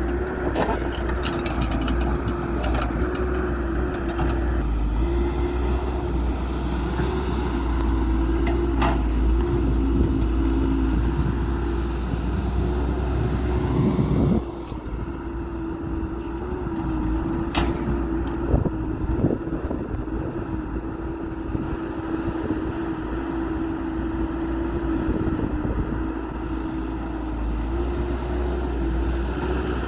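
Diesel engines of heavy construction machinery running steadily, with a few sharp clanks. The low rumble drops abruptly about halfway through.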